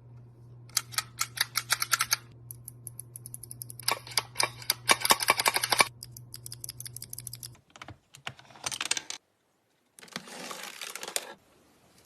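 Mechanical keyboard being typed on in quick bursts of clacking keystrokes, the loudest and densest run about four to six seconds in, over a low steady hum that stops about seven and a half seconds in. After a brief break near nine seconds, a softer, hissier clatter follows.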